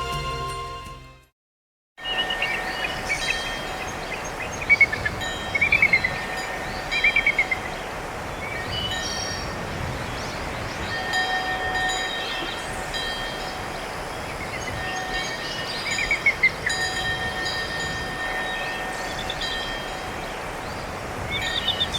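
One Samsung Galaxy S3 ringtone fades out, then after a brief gap another starts. The second is made of chime-like tones and short falling trills over a steady hiss.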